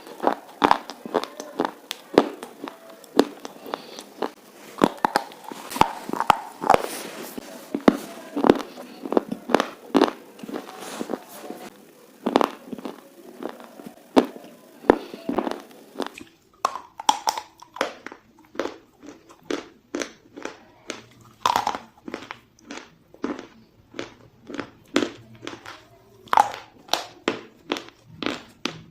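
Close-up biting and chewing of something hard and brittle: a quick run of sharp crunches, one after another. The sound changes about 16 seconds in, with the crunches more spaced out and a low hum underneath.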